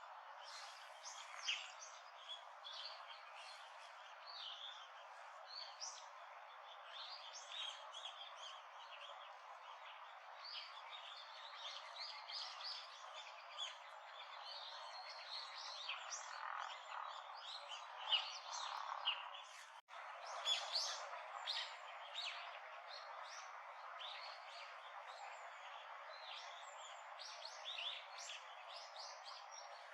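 Wild birds chirping and calling, many short high notes overlapping over a steady background hiss, with a brief break in the sound about two-thirds of the way through.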